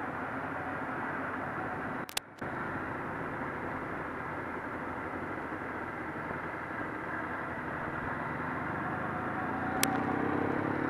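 Suzuki GSX-R 750 streetfighter motorcycle running at low speed under a helmet camera, with steady wind and road noise. The sound drops out briefly with a click about two seconds in, and the engine rises in pitch near the end as it picks up speed.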